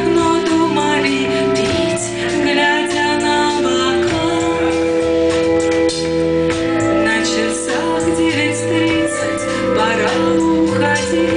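A band playing a song live, with a woman singing over long held notes and a steady bass line.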